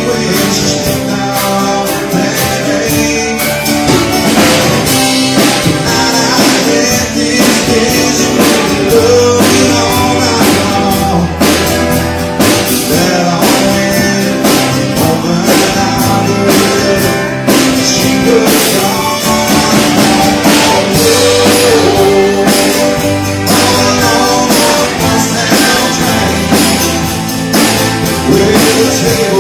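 Live band playing a country-rock song, with guitars and a drum kit keeping a steady beat and a voice singing at times.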